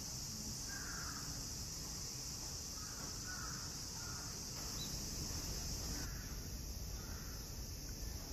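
A steady high-pitched chorus of cicadas, with several short, faint crow caws scattered through it.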